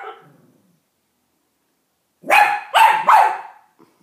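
A dachshund barking in alarm: one bark fading out at the start, a pause of about two seconds, then three quick, loud barks about two and a half seconds in.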